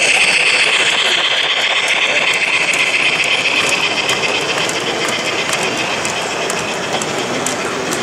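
A 1:32-scale (Gauge 1) model steam locomotive and its freight train rolling past close by. A steady high hiss from the locomotive fades over the first couple of seconds. The wagons then run by with a light, even clicking of wheels on the track.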